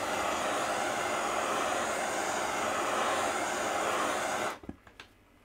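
Steady rushing hiss of the heat source blasting the steel hot cap of a Stirling engine, which cuts off sharply about four and a half seconds in. A few faint light clicks follow.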